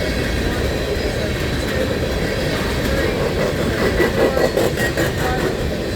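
An empty coal train rolling past: a steady rumble of steel wheels on rail, with a run of clicks and clanks about four seconds in as the wheels cross the rail joints.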